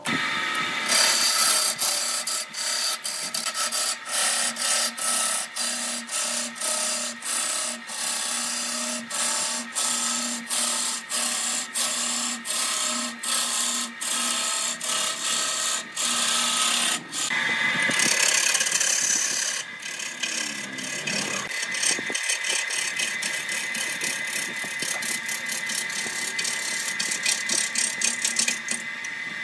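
Wood lathe spinning an areca palm trunk while a gouge cuts into it: a harsh scraping rasp that swells and dips about twice a second. Partway through, the cut changes to a steadier, higher whine with a quicker patter.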